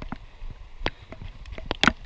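Water splashing in short, irregular bursts in a stream, the loudest splash near the end.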